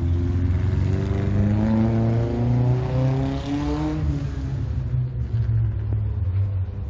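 A car engine accelerating over a steady low rumble, its pitch rising for about four seconds before it falls away.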